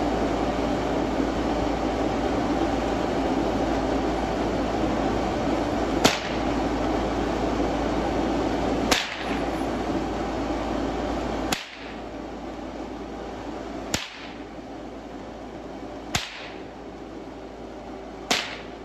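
Steady rushing drone of an inflatable tube man's blower fan, dropping in level about halfway through. Over it come six sharp cracks, about two and a half seconds apart, starting about six seconds in.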